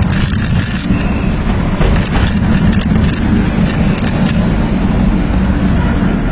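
Car traffic heard from a moving bicycle on a city street, under a steady low rumble of wind on the microphone, with scattered brief scratchy rattles in the first second and again from about two to four seconds in.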